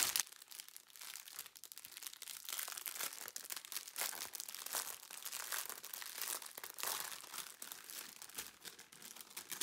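Clear plastic bags of diamond-painting drills crinkling and rustling as the strip of packets is handled, a string of irregular light crackles.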